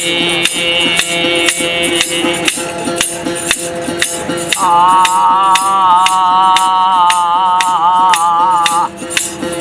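Instrumental break in a devotional folk song: a shaker or rattle keeps a steady beat over held drone notes. About halfway through, a wavering held melody line comes in and stops shortly before the end.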